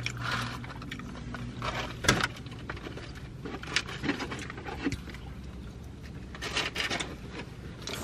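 Paper takeout bag rustling and crinkling as a hand digs through it, with scattered scrapes and clicks; the sharpest click comes about two seconds in.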